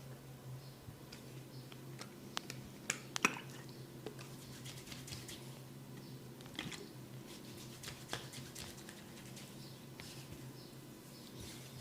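Hands working a head in a head massage: scattered sharp clicks and crackles from the fingers on the scalp and hair, the loudest a quick cluster about three seconds in, with faint scratching in between. A steady low hum runs underneath.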